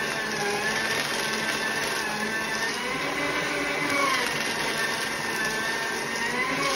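Small electric paper shredder running steadily, its motor whirring as sheets of photo paper are fed in and cut, with a whine that wavers in pitch.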